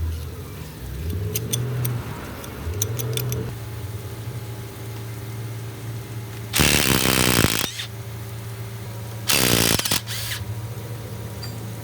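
Wheel loader's diesel engine running, its pitch rising and falling a few times in the first few seconds, then steady. Two loud hissing bursts, each about a second long, come about six and a half and nine seconds in.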